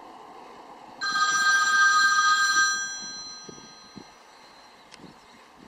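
A phone ringing: one ring starts suddenly about a second in, holds, then fades away, and the next ring begins right at the end.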